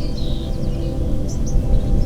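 Ambient background music made of steady low sustained tones, with short high bird chirps over it.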